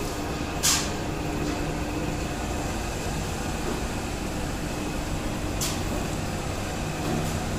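Electric dough kneader running with an empty stainless-steel bowl: a steady motor hum as the kneading arm turns. Two brief sharp hisses come about a second in and again near six seconds.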